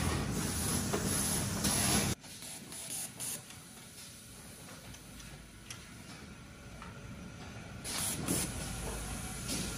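Automated ceramic cup-making machine with pneumatic heads running. A loud hiss of air lasts about two seconds and cuts off suddenly. Quieter machine noise follows, with a couple of short hisses near the end.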